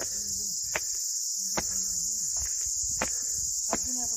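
Steady high-pitched chorus of insects, like crickets chirring. Under it come a few sharp clicks and brief low voice sounds.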